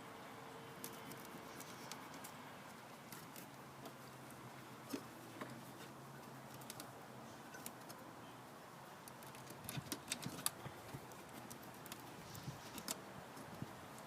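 Faint, scattered clicks and taps from hand work clearing matted Spanish moss off a lawn mower's drive axle, with a quick run of sharper clicks about ten seconds in.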